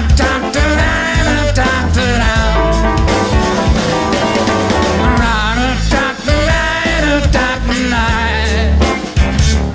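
Live rock band playing an instrumental passage: drum kit, bass guitar and electric guitar, with a lead line that bends up and down in pitch over a steady, heavy low end.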